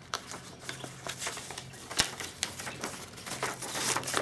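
Paper packing material rustling and crinkling as a box is unpacked by hand, with small clicks and one sharp knock about two seconds in.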